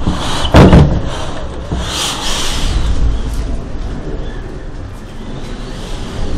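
Tornado wind blowing hard against a house, heard from inside as a steady rumble and hiss. A single loud bang about half a second in is the loudest sound, and a hissing surge of wind follows around two seconds in.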